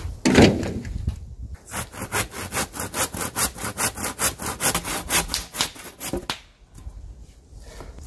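Hand saw cutting through a wooden board in quick, even strokes, about five a second, stopping about six seconds in. Just before the sawing, a wooden board lands with a thud.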